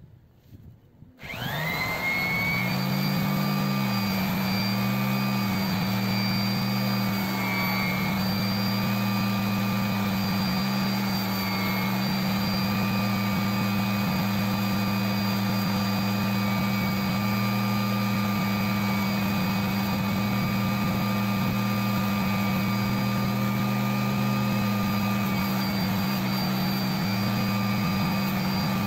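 Handheld electric polisher switched on about a second in, its motor winding up to speed and then running with a steady whine while a small fatwood ring is buffed against its spinning foam pad.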